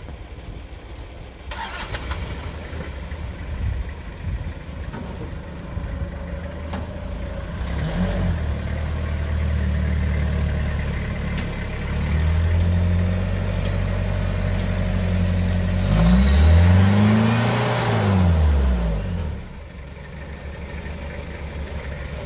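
Toyota Hilux SR5's 2.8 diesel engine pulling the pickup over loose dirt slopes, working harder as it goes. About sixteen seconds in the revs climb and then fall away over some three seconds, the loudest part, before it drops back to a quieter run.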